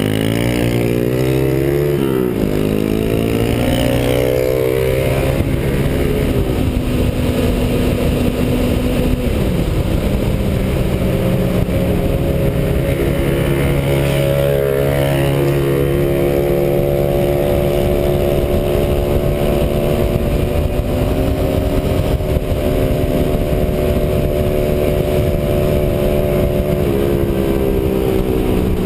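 Yamaha FZR250 Phazer's engine pulling up through the gears, its pitch climbing and dropping back at each upshift over the first few seconds, then holding steady at a cruise. Wind rushes over the microphone throughout.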